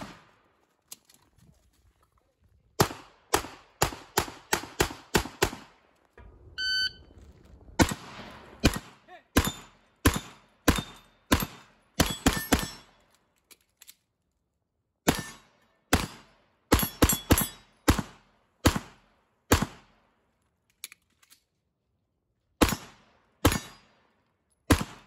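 Glock 48 9mm pistol fired in quick strings of shots, with pauses of a second or two between strings. A brief ringing tone sounds about six seconds in.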